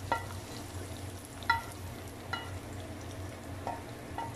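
A slotted spatula scraping fried prawns out of a frying pan onto a ceramic plate, with about five sharp ringing clinks as it knocks against the pan and plate. A low steady hum runs underneath.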